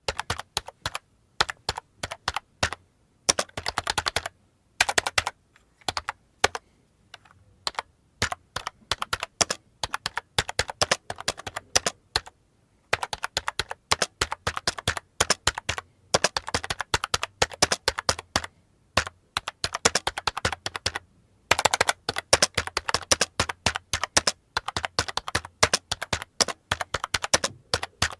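Heavy typing on a computer keyboard: irregular runs of sharp key clicks, with fast flurries broken by short pauses.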